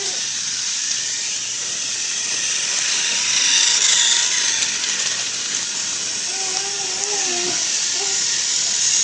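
Small electric motor of a battery-powered toy train whirring steadily as it runs, with a thin steady whine.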